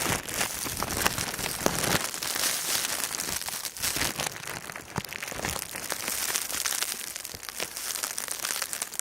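Footsteps crunching through deep snow, with crackling noise from wind blowing on the microphone.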